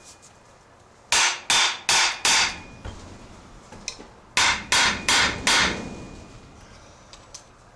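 Hammer blows on a Briggs & Stratton engine's flywheel, trying to knock it loose from the crankshaft: two sets of four sharp metallic strikes, about three a second, with a faint ring after them. The flywheel won't come off because its key has sheared.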